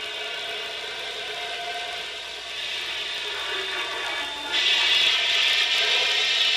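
HO-scale model train running, its motor and gears making a steady mechanical whir. The sound gets noticeably louder about four and a half seconds in.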